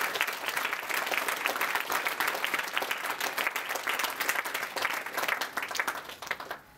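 Audience applauding: dense hand-clapping that dies away near the end.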